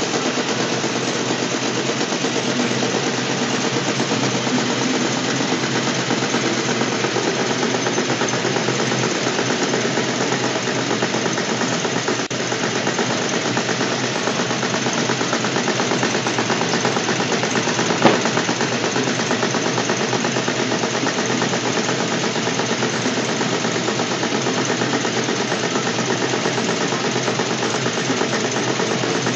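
Automatic polishing-wheel sewing machine with a spiral sewing device running steadily, a fast, even mechanical clatter as it stitches. A single sharp click stands out about eighteen seconds in.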